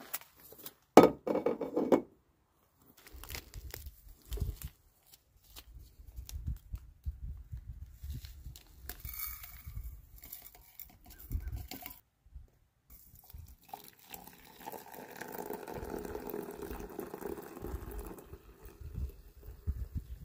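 Camp coffee being made: a loud clank of cooking gear about a second in, then scattered handling noise and liquid sounds, with a longer stretch of water noise near the end.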